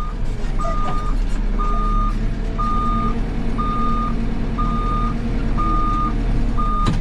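Construction machine's reversing alarm beeping at a steady pitch, about once a second, each beep about half a second long, over the steady low running of a backhoe loader's diesel engine. A sharp click near the end.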